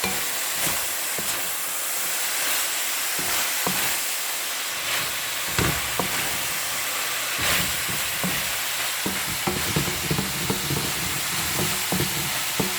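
Chicken strips and fresh French green beans sizzling in oil in a cooking pot, with a utensil stirring and scraping against the pot now and then, more often in the second half.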